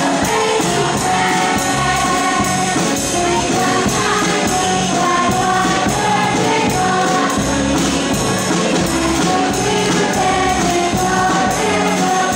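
Musical theatre ensemble number: a large chorus of young voices singing together over an accompaniment with a steady beat.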